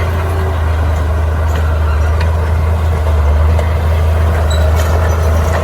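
Heavy diesel earthmoving machinery running steadily, with a deep, even engine hum and a few faint clanks.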